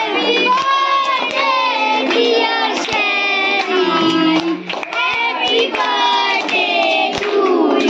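Children singing a birthday song together, several voices at once, with hand clapping.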